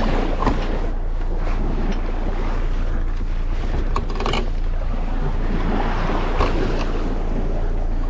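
Small boat's outboard motor running steadily at low speed, with wind buffeting the microphone, water sounds and a couple of sharp knocks partway through.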